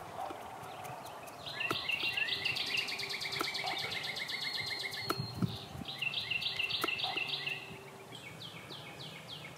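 Songbirds singing in the open: a fast run of repeated high chirps, a pause, another run, then a slower series of down-slurred whistles near the end.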